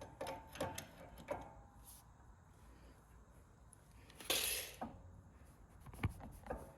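Light metallic clicks and clinks of hand tools working on steering parts while a nut is snugged, with a short louder rasp about four seconds in.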